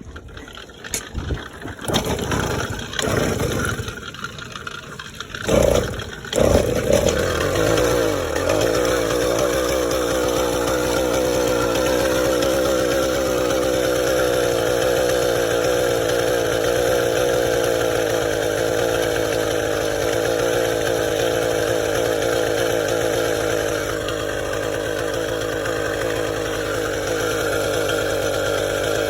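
Motorized bicycle's small engine being started: a few seconds of sputtering bursts, then it catches about six seconds in and runs steadily. It is running after a leaking exhaust gasket was replaced and the head bolts were tightened, which the mechanic took to be why it barely ran.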